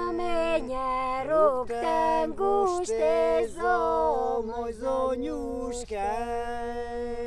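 Voices singing a bending melody over a steady held drone note.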